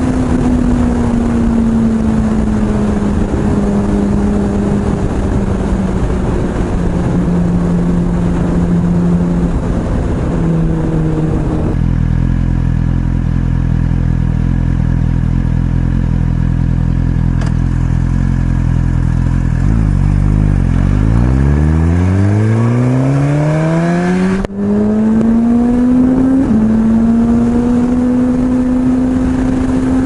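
2017 Suzuki GSX-R1000R's inline-four engine heard from the rider's seat, with wind rush: running while the bike slows, idling steadily at a stop for about eight seconds, then revving up as it pulls away, with two quick upshifts breaking the rising pitch.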